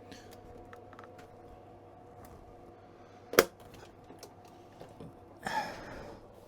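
A sharp click about three and a half seconds in, then a short rustle near the end, with a few small clicks over a faint steady electrical hum: handling noise while setting up the radio on the bench.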